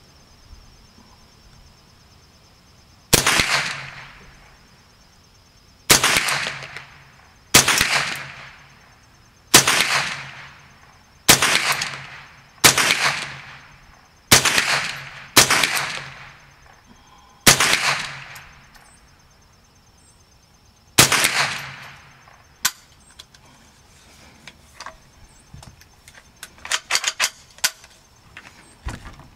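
Ruger 10/22 .22 rifle firing a string of ten single shots, spaced about one to three and a half seconds apart, each crack trailing off with an echo. Lighter clicks and a quick flurry of small cracks follow near the end.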